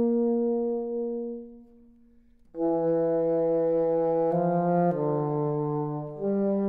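Solo alto saxophone playing a slow, unaccompanied melody in its low register. A long held note fades away, and after a short gap a phrase of several sustained notes begins.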